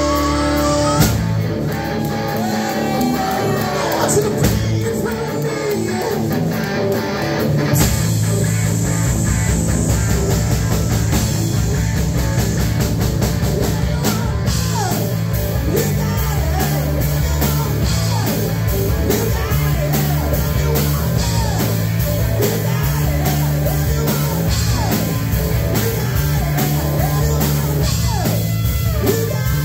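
Live rock band playing loud: electric guitar over electric bass and a drum kit, the guitar bending notes up and down in the second half.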